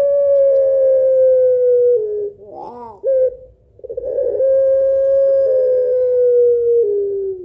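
Barbary dove (puter pelung) giving two long drawn-out coos, each held about two seconds and sliding slowly lower in pitch, with a short wavering note between them; the second coo steps down near the end.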